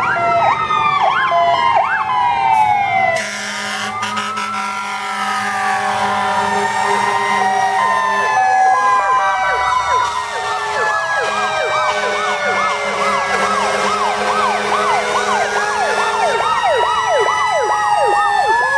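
Several fire engine sirens sounding together as the trucks pass: one siren winds down in pitch at the start, while others rise and fall in slow wails, and from about eight seconds in a fast whooping yelp repeats about twice a second.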